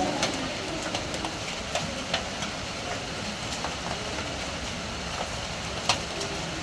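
Steady rain falling on a corrugated sheet-metal roof, with scattered sharp taps of heavier drops and drips striking the metal.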